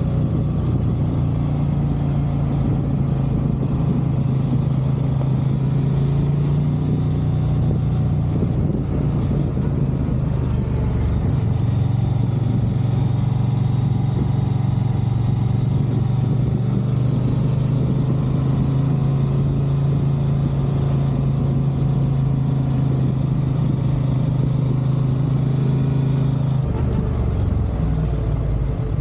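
Honda CB500X parallel-twin motorcycle engine running steadily at cruising revs, its pitch dropping slightly about a third of the way in and shifting lower near the end.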